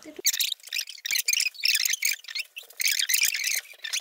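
Hard pencil scratching across watercolour paper in many quick, short strokes, sped up in fast motion.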